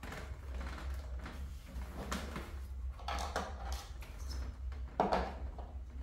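A string of brief rustling, scraping and knocking noises as small objects are picked up and handled, the loudest about five seconds in, over a steady low hum.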